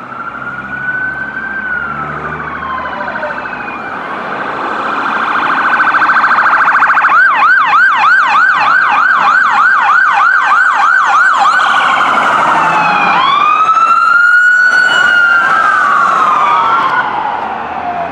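Electronic sirens on several police cars passing in turn. Slow wails come first, then a fast yelp of about three to four sweeps a second, and then another wail rising and falling, overlapping a second siren. The sound grows loud about four seconds in and falls off near the end.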